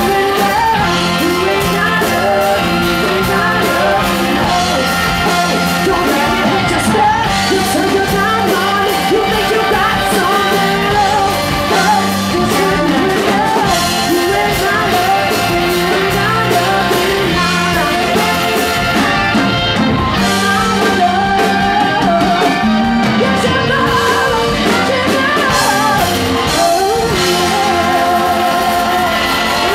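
Live rock band playing at full volume, with a singer's voice wavering over the band.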